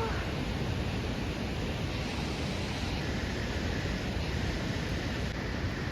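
Waterfall water rushing steadily, an even unbroken wash of noise.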